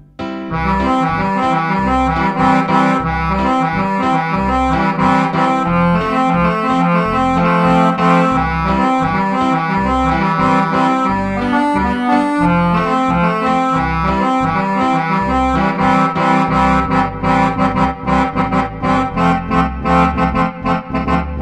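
Roland FR-1x digital accordion played on a user program, a layered orchestral sound with reed- and brass-like voices over a pulsing bass and chord accompaniment. It picks up right after a brief gap at the start, and the notes turn shorter and choppier near the end.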